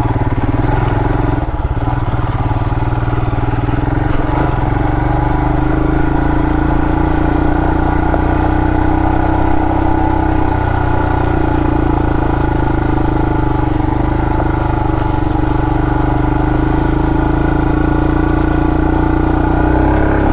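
2020 Royal Enfield Himalayan's 411 cc single-cylinder engine running steadily as the motorcycle rides along a dirt trail, heard through the rider's helmet mic.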